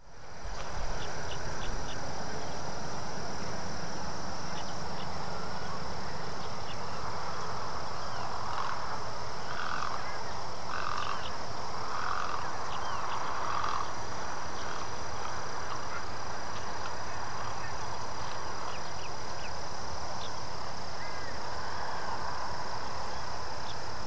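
Marsh ambience at a feeding flock of great egrets and ibises. A steady high drone runs throughout with scattered faint clicks, and a run of harsh calls comes around the middle.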